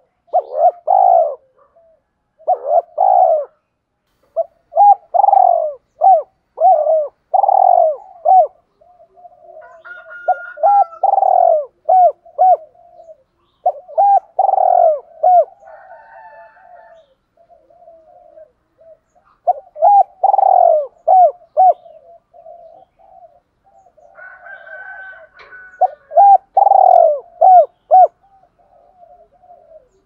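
Spotted dove cooing: repeated phrases of several coo notes each, some loud and some softer, separated by pauses of about a second or two.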